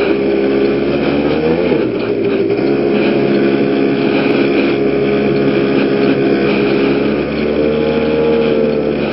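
110cc two-stroke PGO Rattler scooter engine running at a steady speed while being ridden. Its pitch briefly rises and falls about a second and a half in.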